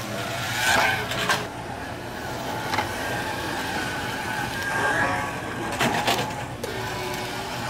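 Slot cars' small electric motors whining steadily as the cars race around the track, with a few sharp clacks.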